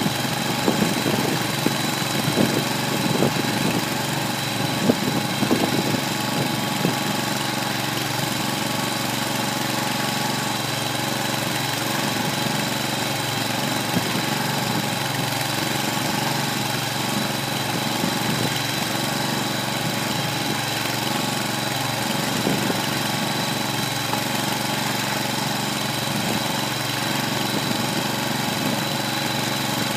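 Kohler 25 hp gasoline engine running steadily, driving a small 25-cubic-foot feed mixer as it tumbles a load of hay. A few sharp knocks sound over the engine in the first several seconds.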